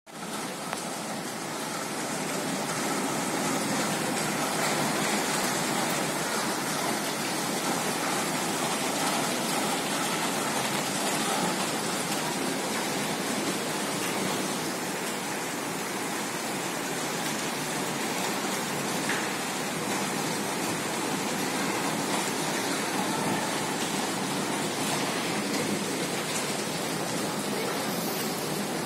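Steady rushing noise of a passenger train on the move, heard from on board as it pulls out of a station. The noise swells over the first few seconds, then holds even.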